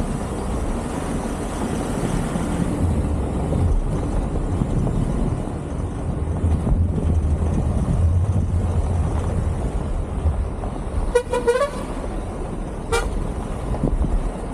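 Motorcycle riding a rough gravel road, with a steady low rumble of engine and road noise. A vehicle horn toots several times in quick succession about eleven seconds in, then once more briefly a second and a half later.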